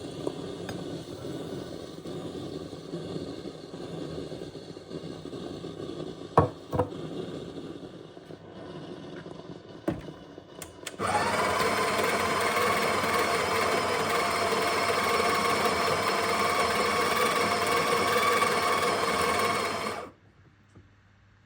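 Sage espresso machine: light clatter and a few sharp knocks, then a loud, steady mechanical whirr for about nine seconds that cuts off suddenly.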